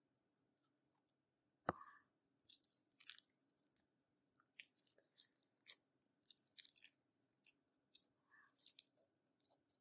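Slime and makeup being worked by hand: irregular sticky crackles and sharp clicks, with one louder knock a little under two seconds in.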